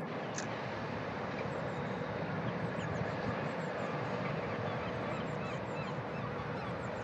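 Distant port and traffic noise: a steady rumble with a faint steady hum, and scattered faint bird chirps over it.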